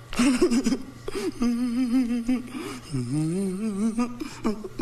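A man's voice making a long, wavering hum with a quick vibrato, dipping and then rising in pitch about three seconds in.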